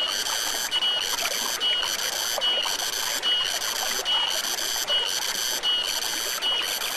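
A loud, high-pitched buzzing call from forest animals, broken by short gaps about every 0.8 s, over the faint rush of a stream. Near the end a rapid ticking pulse joins it.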